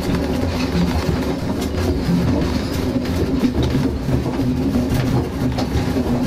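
Train running along the track: a steady low rumble with scattered clicks of the wheels over the rail joints.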